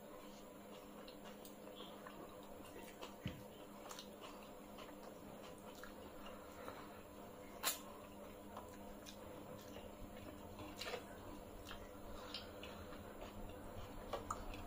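Quiet hand-eating sounds: fingers squishing and mixing rice and curry on metal plates, soft chewing, and scattered small clicks of food and fingers against the metal, with one sharper click about eight seconds in.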